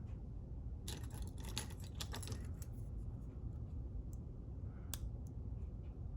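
Small metal padlock parts clicking and clinking as the lock is taken apart by hand: a quick run of clicks about a second in, then a few scattered single clicks.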